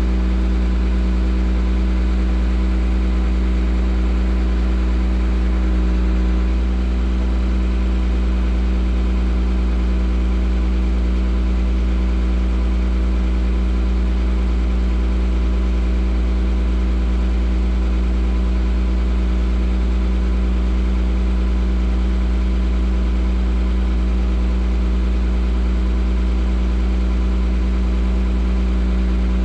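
Bucket truck's engine running steadily at idle, driving the hydraulic pump that powers the aerial boom as it is moved, its sound dipping slightly about a fifth of the way in.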